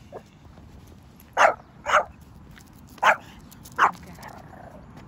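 Pomeranian barking at an approaching dog: four short, sharp barks in two pairs, about half a second apart within each pair.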